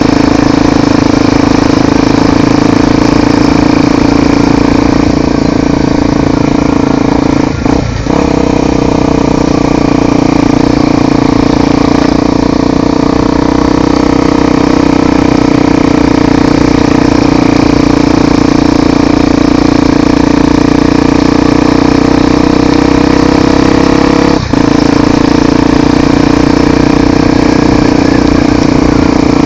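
Honda XR 250 Tornado's single-cylinder engine running steadily and loudly while being ridden, with two brief dips in engine sound, about eight seconds in and again near the end.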